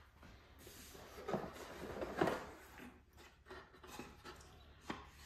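Cardboard packaging rubbing and scraping as the Starlink Mini dish is handled and lifted out of its box insert, with a few light clicks and knocks near the end.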